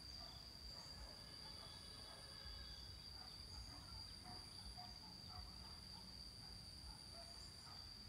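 Faint riverside ambience: a steady, high-pitched insect drone, with scattered faint chirps and a low rumble underneath.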